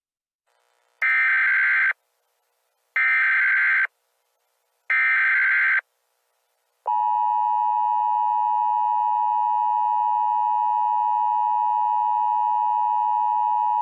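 Emergency Alert System signalling: three short bursts of SAME header data, each about a second long with a second of silence between them, then, about seven seconds in, the steady two-tone attention signal. This is the sequence that opens an EAS alert, ahead of the spoken warning.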